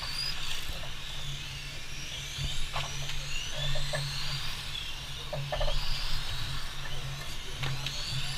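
Electric radio-controlled Formula 1 model cars driving a race lap, their motors giving high whines that rise and fall in pitch as they accelerate and brake through the corners, with several cars overlapping. A few short clicks are mixed in.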